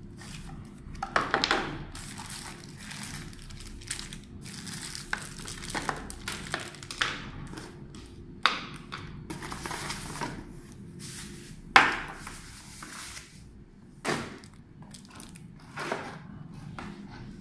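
Hands unpacking a bullet security camera: plastic wrapping rustling and crinkling and a cardboard box being handled, with several sharp knocks as parts are set down and picked up, the loudest about a second in and about two-thirds of the way through.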